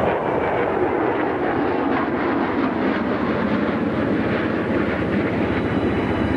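Two Honda Africa Twin XRV750 motorcycles, 750 cc V-twins, riding up and passing close by, their engines running steadily.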